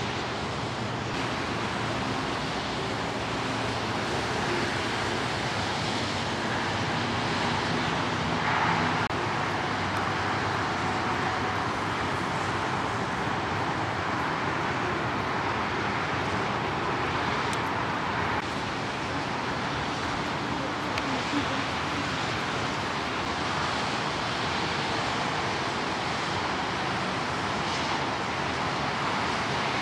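Steady rush of city traffic noise that holds an even level throughout.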